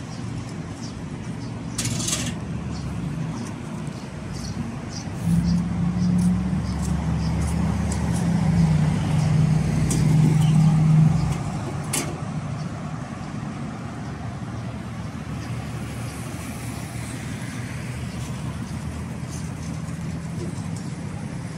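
Road traffic runs steadily alongside. A motor vehicle passes close from about five seconds in, its engine hum growing louder and then falling away about eleven seconds in. A couple of brief knocks can be heard.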